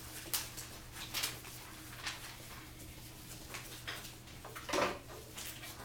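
Classroom handling noises: a scatter of short clicks and paper rustles over a steady low hum, with a louder, duller knock about five seconds in.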